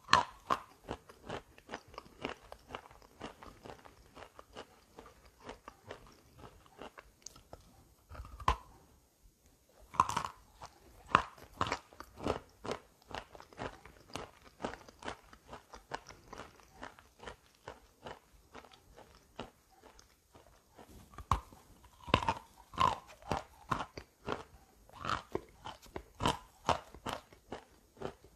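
Wet chalk coated in gray clay paste being bitten and chewed: a steady run of gritty crunches, with louder bites about a third of the way in and again past two-thirds.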